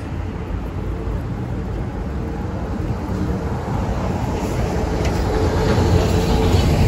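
Low, steady rumble of vehicle traffic with a faint engine hum, growing louder toward the end.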